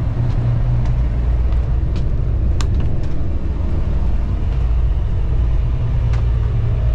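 Steady low rumble of a moving coach bus heard from inside the cabin, with a couple of light clicks, one about two and a half seconds in and one about six seconds in.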